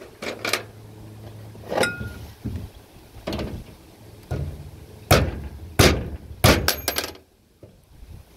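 Hammer blows on metal, about seven sharp knocks with a short ring. The three hardest come near the end, well under a second apart.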